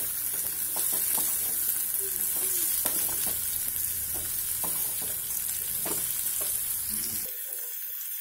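Green capsicum pieces frying and sizzling in an aluminium kadai, stirred with a plastic spatula, with scattered scrapes and taps of the spatula against the pan over the steady sizzle.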